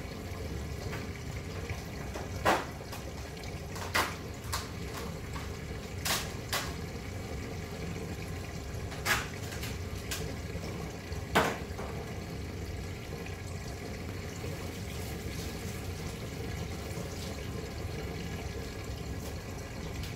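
Water running steadily, broken by several short sharp knocks scattered through the first half or so.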